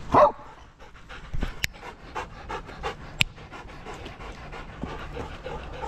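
Dogs panting hard and fast, about three breaths a second, worked up and excited. A short louder sound comes right at the start, and two sharp clicks come through the panting.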